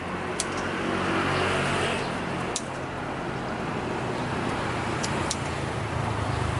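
Motor vehicle engine running, with a steady low hum that swells about a second in and then eases off. A few sharp clicks sound over it.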